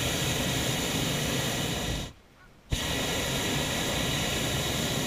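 Hot-air balloon propane burner firing in two blasts: a loud, steady rushing hiss that stops about two seconds in, then after half a second starts again abruptly with a sharp click and keeps going.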